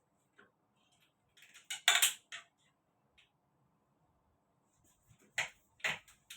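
Sharp knocks and clicks of hand work on a door: a quick cluster about two seconds in, then two louder knocks close together near the end.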